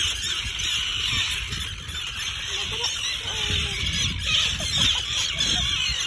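Many adult terns calling at once, a steady chorus of overlapping harsh calls: the alarm of nesting terns disturbed by people near their chicks.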